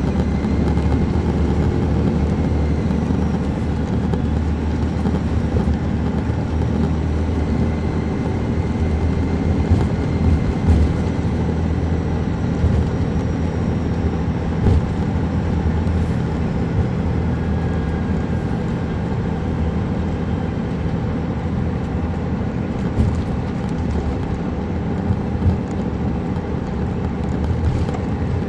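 Caterpillar C13 ACERT diesel engine of a 2007 MCI D4500CL coach, heard from on board, running steadily under way with road noise. A few short knocks or rattles stand out around the middle and again about two-thirds of the way through.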